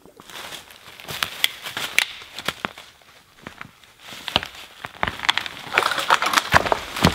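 A thin dead standing tree being pushed over: dry wood cracking and snapping, then the trunk falling into dry leaf litter about six seconds in. Twigs and leaves crackle throughout.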